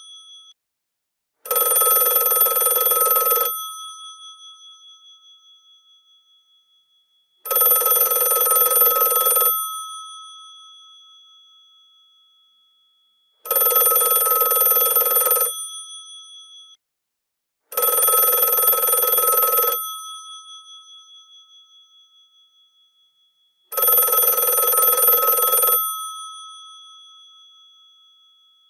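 GPO 746 rotary telephone's electromechanical bells ringing in bursts of about two seconds, five times, starting about a second and a half in. After each ring the gongs go on humming and slowly die away before the next ring.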